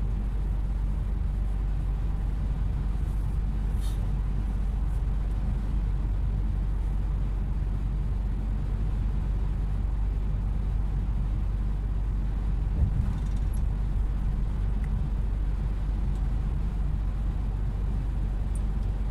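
Steady low rumble of a vehicle cruising on a highway, engine and road noise from the moving vehicle itself, with a single light knock about two-thirds of the way through.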